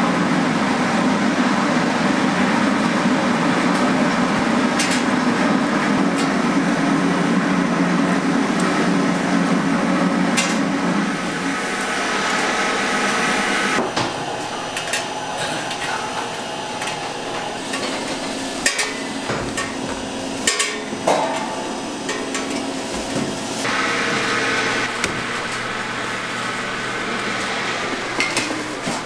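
Automatic fish cake making machine running: a steady mechanical drone, with sharp metallic knocks and clatter in the second half.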